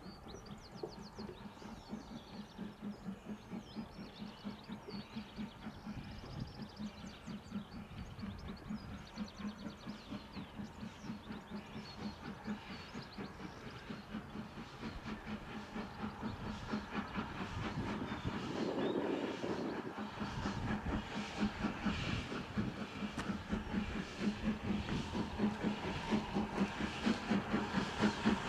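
Steam locomotive working a train toward the listener: a steady rhythm of exhaust beats, about two to three a second, growing louder as it approaches.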